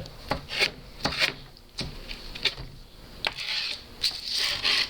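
Skateboard grip tape being scraped with a skate tool along the edge of the wooden deck, a gritty rasping in uneven strokes with a longer scrape near the end. This wears down the tape over the edge to mark and weaken the line for the razor-blade cut.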